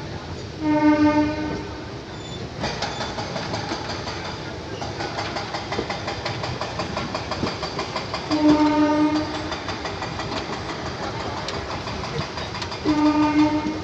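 A train horn sounds three short blasts, one near the start, one about two-thirds of the way through and one near the end, over continuous noise of rail traffic and machinery.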